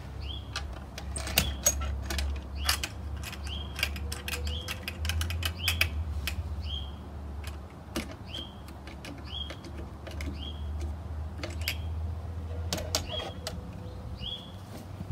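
Clicks, knocks and rattles as the Geonics EM-31 MK2's console is handled and fitted back onto its boom, loudest about a second and a half in and again near the end. A short high chirp, likely a bird, repeats about twice a second behind it.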